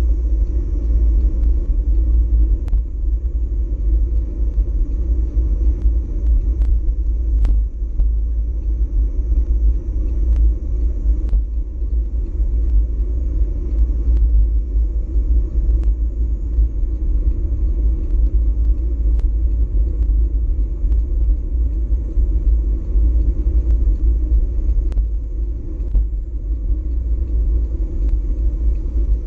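Steady low wind rumble buffeting a GoPro Hero4 Session's microphone as the bicycle rides along, with occasional sharp clicks.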